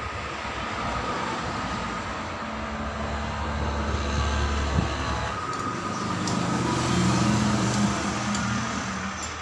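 An engine running with a steady low hum that shifts higher in pitch about halfway through.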